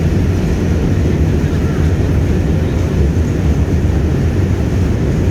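Subway train running, a loud steady low rumble without breaks, with faint voices in the background.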